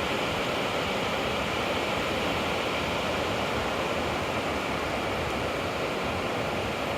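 Waterfalls, a steady even rush of falling water.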